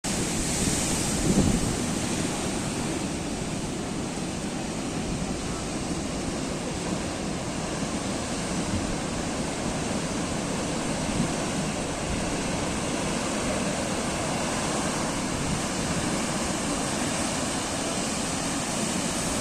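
Atlantic Ocean surf: a steady wash of waves breaking along the shore, with a louder surge about a second in.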